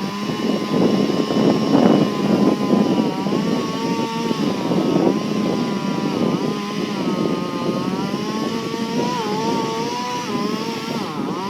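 Chainsaw running at high revs through a felling cut in a large tree, its engine pitch wavering up and down as it works in the cut.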